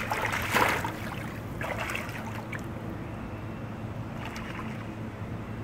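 Pool water splashing as a swimmer ducks under to do a handstand, then softer sloshing and lapping of the water, with a second small splash about four seconds in. A steady low hum runs underneath.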